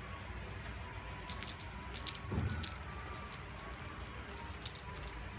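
Plastic holed cat ball with a bell inside jingling in quick irregular bursts as it is shaken and rolls, with one dull thump a little past two seconds in.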